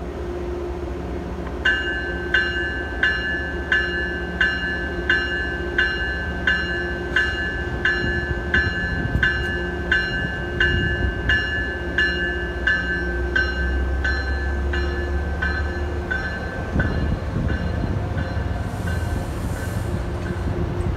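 Commuter train's bell ringing, one stroke about every 0.7 s, as the train pulls out of the station, over the low rumble of the train getting under way. The bell fades away as the train moves off.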